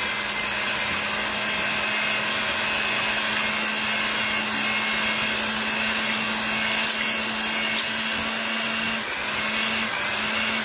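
Electric hand mixer running steadily at one speed, its beaters whisking eggs and cream in a metal pot, with a constant motor hum; it is switched off at the very end.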